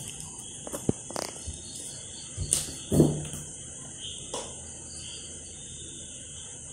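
Quiet room tone with a steady high-pitched hiss, and a few soft clicks and knocks from a knife cutting into a cream-covered cake on its plate.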